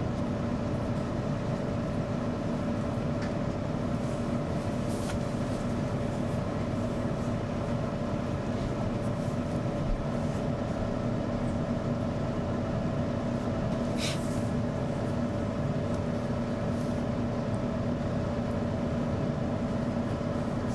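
Hair dryer running steadily: a constant rush of blown air over an even motor hum, with a few faint brief ticks.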